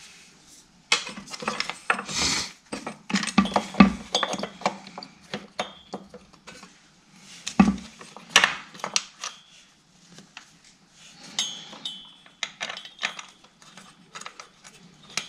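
Irregular clicks, clinks and knocks of a new ignition coil being handled and fitted to a Stihl TS400 cut-off saw's engine beside the flywheel, with small parts tapping against the housing.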